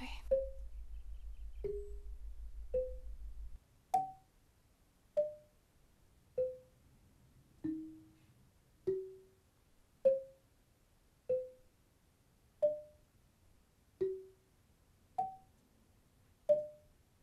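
Sparse background music of single struck notes at changing pitches, about one every second and a quarter, each dying away quickly. A low hum runs underneath for the first few seconds and cuts off suddenly.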